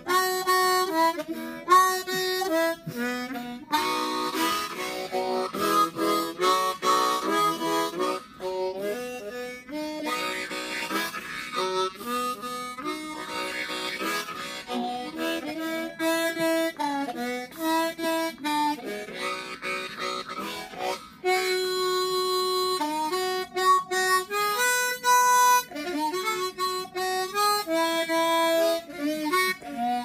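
Solo harmonica played with the instrument cupped in both hands: a melody of quick notes and chords, with a few longer held notes along the way.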